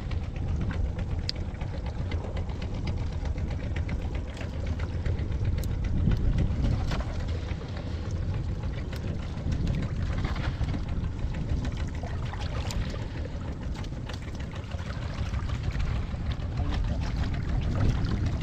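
A steady low rumble under light, wet clicks and rustling as hands pick small fish out of a fishing net on wet mud.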